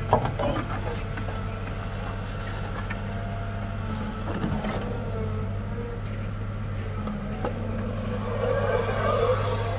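CAT M314 wheeled excavator's diesel engine running steadily. A sharp clank comes just after the start, and a few lighter knocks follow. Near the end the bucket scrapes and pushes through soil.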